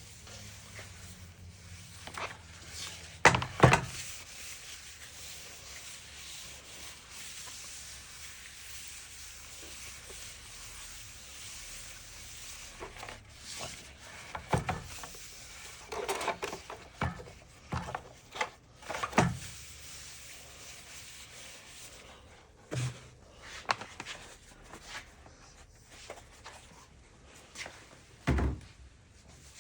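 Wooden cutting board being handled while it is oiled: scattered knocks and thunks of wood on a work surface, two sharp ones about three seconds in and a cluster in the middle, with quiet rubbing between.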